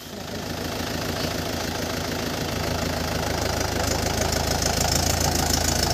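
Diesel tractor engine running with a steady, evenly pulsing hum that grows gradually louder over the first five seconds.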